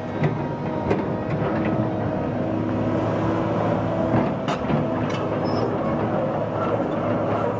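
Excavator diesel engine running steadily, with scattered metallic clanks and knocks over the hum.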